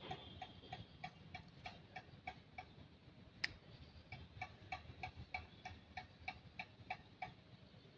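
Faint, regular ticking, about three ticks a second, with one sharper click about three and a half seconds in. The ticking stops shortly before the end.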